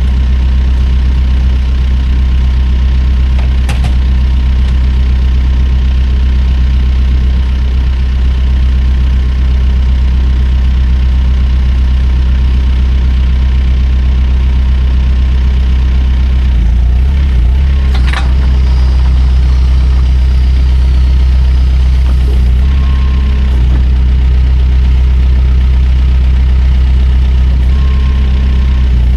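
Backhoe's diesel engine running steadily and loud, its note shifting slightly about two-thirds of the way through, with a couple of short sharp knocks.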